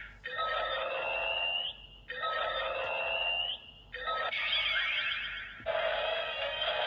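DX Blazar transformation toy playing its electronic weapon sound effects through its small built-in speaker: four short clips of a couple of seconds each, one after another, some with a rising tone.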